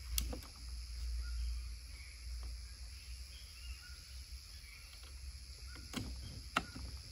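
A few sharp clicks from handling the PCP air rifle: one just after the start and two about half a second apart near the end. Under them run a steady high insect buzz and a low rumble; the rifle is not fired.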